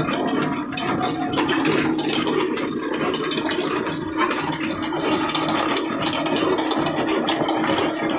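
Belt-driven wheat grinder and its line shaft and pulleys running steadily under power from two 18 HP diesel engines, a constant mechanical hum.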